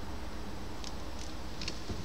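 Gloved hands handling a metal spacer on a mower gearbox shaft: a few faint light clicks, about a second in and again near the end, over a steady low hum.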